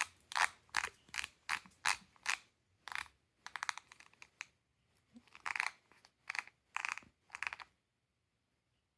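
Master combination padlock clicking as its combination is entered: a run of short, sharp clicks, about two or three a second in uneven groups, that stops a little over a second before the end.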